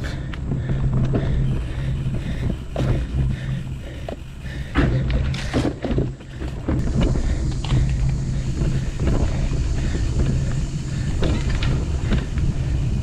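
Mountain bike rolling fast over a dirt forest trail: a steady rumble of tyres and wind on the microphone, broken by frequent knocks and rattles as the bike hits bumps.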